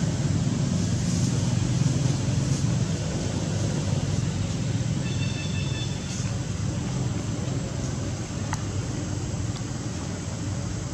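Steady low outdoor rumble, with a brief high-pitched chirp about five seconds in.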